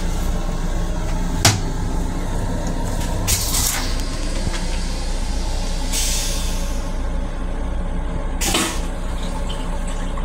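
Long Island Rail Road M7 railcar toilet flushing: a short hiss about three seconds in, then a longer rinse spray that fades away about six seconds in, with a click near the start and another near the end. Under it runs the steady rumble of the train.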